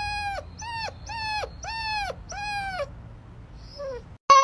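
Chocolate-brown puppy giving a string of short, high howling cries, each sliding down in pitch, about two a second, growing fainter after about three seconds. Right at the end, another dog's louder, steady howl cuts in.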